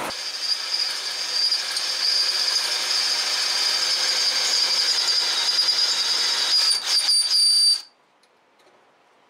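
Cordless drill boring into a broken steel bolt in an exhaust header flange, with a steady high-pitched whine that cuts off suddenly near the end. The bit is rubbing and heating rather than cutting: the drill bits won't cut anymore.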